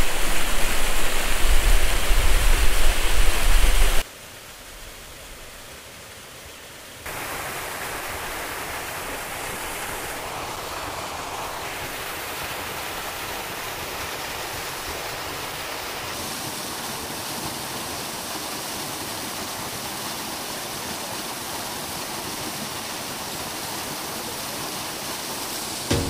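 Steady rush of water from a mountain stream or waterfall. The first four seconds are louder, with a deep rumble. The sound then cuts abruptly to a quieter, even hiss that holds steady through several edits.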